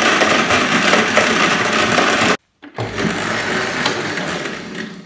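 Panasonic juicer-blender motor running at speed, blending milk, bananas and ice cubes. The sound breaks off abruptly for a moment about two and a half seconds in, comes back, and dies away near the end as the motor stops.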